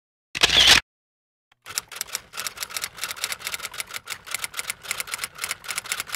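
Outro sound effects: a short swish about half a second in, then a rapid clatter of typewriter key clicks, several a second, as the on-screen text types on.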